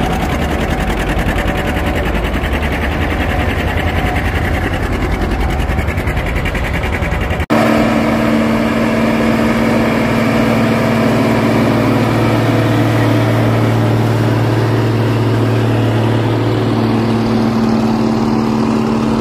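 Big John Deere four-wheel-drive tractors running under load, pulling tillage implements through dry soil. A dense low engine rumble cuts off suddenly about seven seconds in and gives way to a steadier engine drone with a clear pitch.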